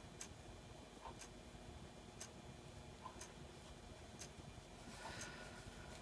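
Faint ticking of a clock, about one tick a second, steady and even. A brief soft rustle about five seconds in.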